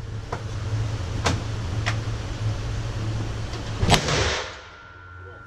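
Handgun shots echoing in an indoor shooting range: a few sharp cracks, the loudest about four seconds in, each trailing a short echo, over a steady low hum.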